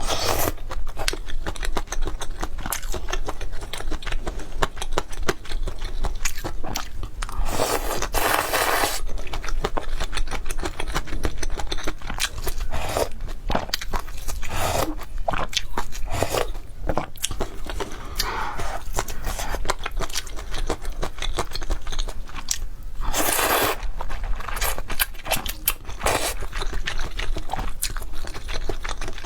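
Close-up eating sounds from a bowl of luosifen with fried tofu skin: steady crunching, biting and chewing, with two longer noisy stretches, one about a quarter of the way in and one about three quarters in.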